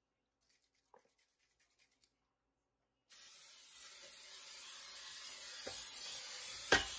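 Aerosol can of Baker's Joy non-stick baking spray hissing steadily as it coats a cake pan. The spray starts about three seconds in, slowly grows louder over about four seconds, and a short knock comes near the end.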